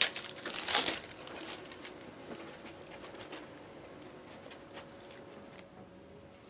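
Trading-card pack wrapper crinkling, two sharp rustles in the first second, then a few faint light clicks and rustles that die away.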